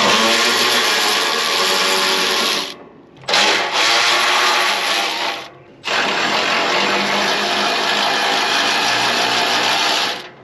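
Cordless power driver backing out the screws that hold the excavator's control panel and floor pan, running in three long spells with short pauses between.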